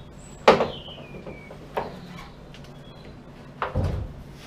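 Rover SD1 hatchback tailgate being freed from its strap and lowered: a sharp knock with a short squeak falling in pitch about half a second in, a lighter knock, then a heavier low thud near the end as the tailgate comes down.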